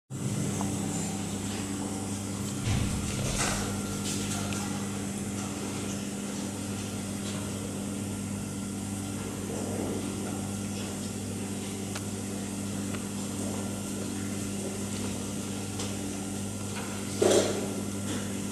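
Steady low electronic hum or drone from the amplified sound system, with a few faint clicks. A sharper knock stands out near the end.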